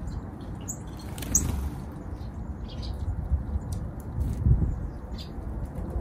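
Small songbirds feeding on snow: a few short, high chip notes and a flutter of wings as birds come and go, over a steady low rumble.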